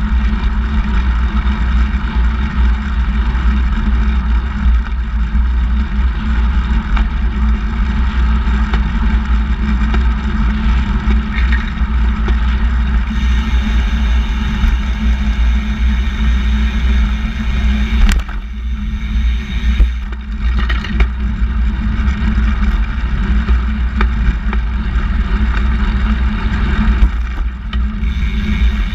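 Wind and road noise on a camera mounted low on a moving handbike: a steady, loud rumble with a hiss over it. There is a single sharp knock about two-thirds of the way through.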